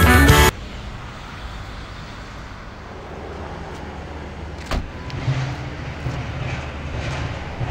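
A music sting cuts off just after the start, leaving a steady low rumble of vehicles. About halfway through, a single sharp thud of a van door being shut.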